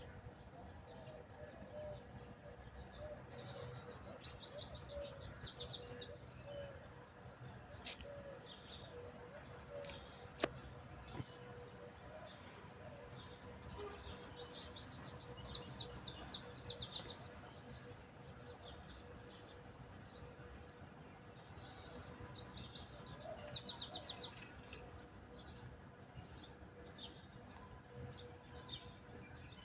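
Small birds chirping: three spells of rapid, high chirping, with scattered single chirps between them.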